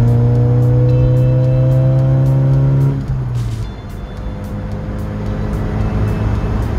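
1977 Vauxhall Cavalier Mk1's four-cylinder engine heard from inside the cabin, pulling in gear with the revs rising steadily, then dropping suddenly about three seconds in and settling to a lower, steady note.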